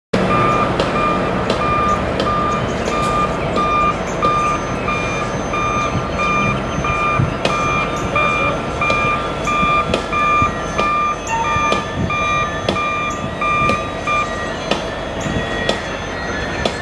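Heavy-equipment backup alarm beeping in a steady repeating pattern, stopping near the end. Underneath is the continuous noise of the ballast work train and machinery, with scattered clanks.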